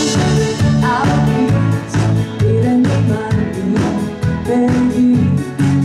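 Live pop band playing: a woman singing into a microphone over electric bass and a steady drum beat.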